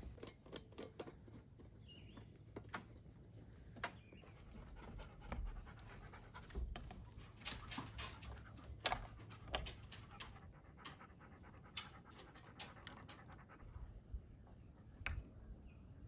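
A dog panting, faint, mixed with irregular light clicks and knocks.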